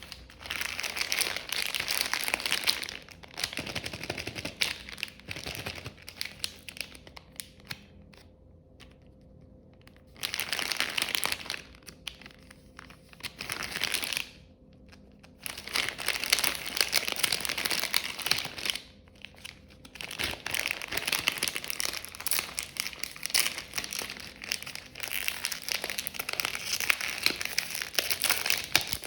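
Wood fire in a fireplace crackling and popping, a dense run of sharp snaps that comes in spells with brief quieter lulls between them.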